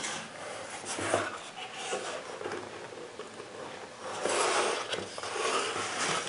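Cardboard box being handled: its lid lifted off and the contents shifted, with scraping and rustling that get louder in the last couple of seconds as a plastic-wrapped item is pulled out.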